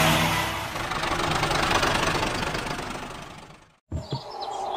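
Tractor engine running, fading away over about three seconds until it cuts out to silence; a sudden low thump comes near the end.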